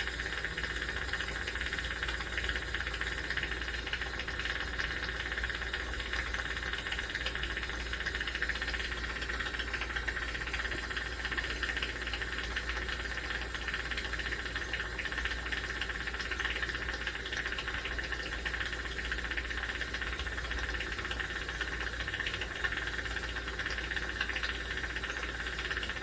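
Jeweler's soldering torch flame hissing steadily while solder is flowed into a joint of a hollow gold chain.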